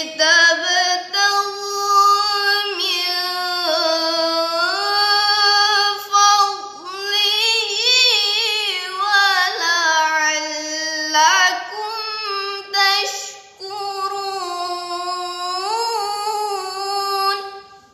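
A girl's voice reciting the Qur'an in the melodic tilawah style, drawing out long ornamented phrases with wavering turns and a few brief breaks. The pitch climbs highest around the middle, and the recitation stops just before the end.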